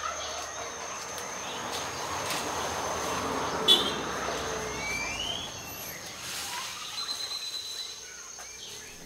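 Human-made background noise at a forest edge: a vehicle passing, its rushing rumble swelling and fading over about six seconds. Birds chirp over a steady high whine, and there is a sharp knock about three and a half seconds in.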